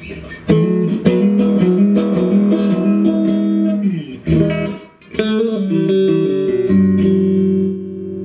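Electric guitar played through the clean channel of a freshly repaired Mesa Triple Rectifier Solo amplifier head, as a test after the repair. A few chords and notes are struck, each left to ring for a second or more.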